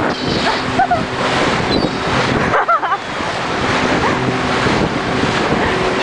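Wind buffeting the microphone over a steady rush of wind and water, with a few short, curving gull calls cutting through it.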